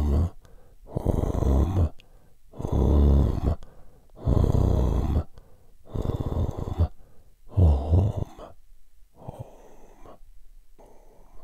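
A man's voice in a shamanic healing vocalisation, making about seven long, rough, breathy sounds in a steady rhythm, each about a second long. The last two are fainter.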